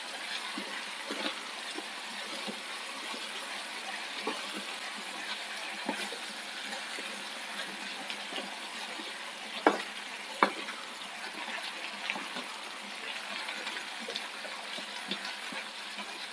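Potatoes and green beans sizzling in a frying pan while a wooden spatula stirs them, with a steady hiss and many small taps of the spatula against the pan. Two sharper knocks come about ten seconds in.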